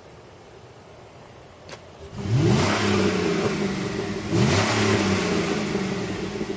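2007 Chevrolet Avalanche's V8 engine revved twice, about two seconds apart, each time sweeping up in pitch, then easing back down. A faint click comes just before the first rev.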